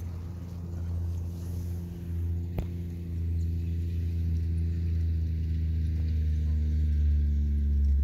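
Low, steady engine hum running without a break and rising slightly in pitch near the end, with a single sharp click about two and a half seconds in.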